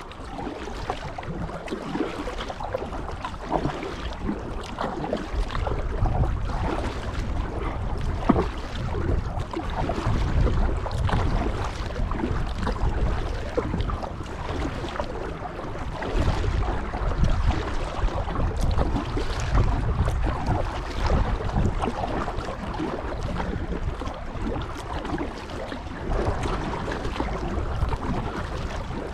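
Kayak paddle strokes splashing and pulling through canal water, over and over, with wind rumbling on the microphone.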